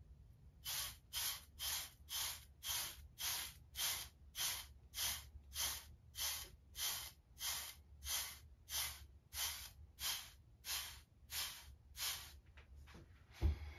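Hard seven-row bristle wave brush stroking over short waved hair, an even swish about twice a second. A single low thump near the end.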